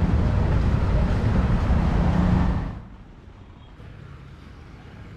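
Loud road traffic noise from a busy street, an even rush heaviest in the low end. It drops off abruptly a little past halfway to a faint low hum.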